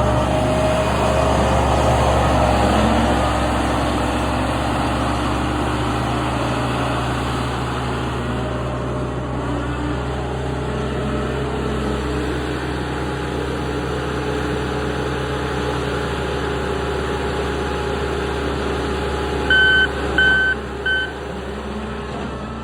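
New Holland C362 skid steer's diesel engine running steadily, a little louder in the first few seconds. Near the end its backup alarm gives three short beeps.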